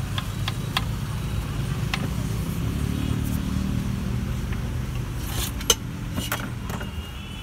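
Steady low rumble of passing street traffic. Over it, a few sharp knife taps on a wooden chopping block in the first two seconds, then a cluster of clinks and one loud knock near the end as the steel mixing pot is handled.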